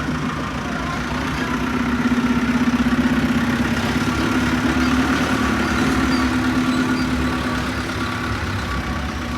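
Dump truck engine running steadily with a low hum, growing louder about two seconds in and slowly easing off after.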